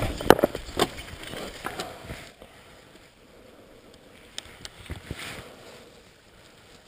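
Mountain bike rattling and knocking as it rolls down a rough dirt trail over rocks and roots, loud for the first two seconds, then quieter rolling with scattered clicks.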